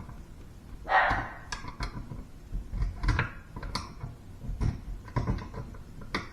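Irregular small clicks, knocks and scrapes of hand work on a bathroom sink's pop-up drain parts and the tool used to clear the clog, with a louder brief scrape about a second in.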